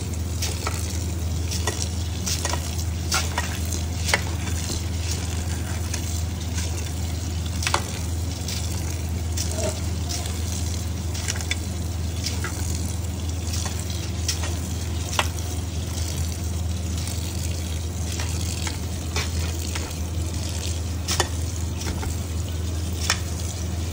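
Tap water running into a steel pot of rice while hands swirl and rub the wet grains: a steady hiss with many small scattered clicks and splashes, over a steady low hum.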